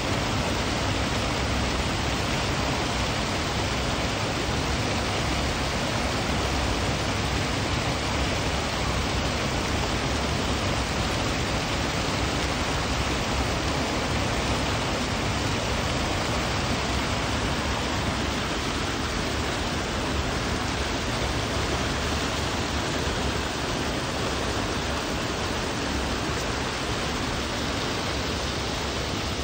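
Water pouring over a concrete sluice-gate spillway and churning into foam below: a steady, even rush.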